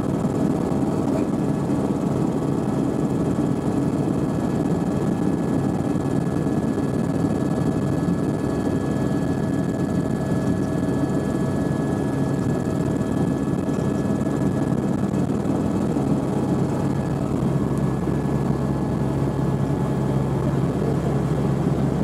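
Sightseeing helicopter in flight heard from inside the cabin: a steady, loud drone of engine and rotors with a constant whine running through it.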